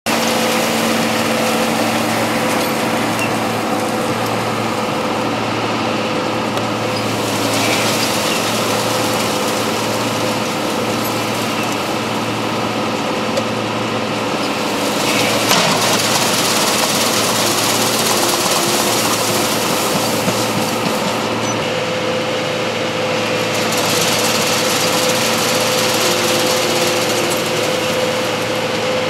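Farm machinery's diesel engine running steadily under load, with a steady whine. A higher hiss swells twice and fades.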